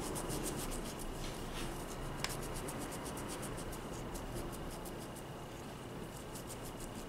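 A cotton pad rubbed briskly back and forth over a gel-polished fingernail to wipe it clean, about eight quick scrubbing strokes a second. The strokes ease off midway and then pick up again, with one sharp click a little over two seconds in.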